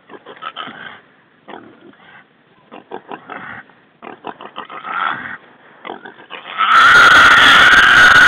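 A caught hog, its leg tied with rope, makes short scattered noises amid rustling brush, then squeals loudly for about two seconds near the end.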